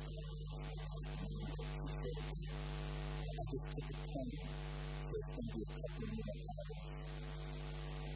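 Steady electrical mains hum, with soft sustained keyboard music faintly beneath it.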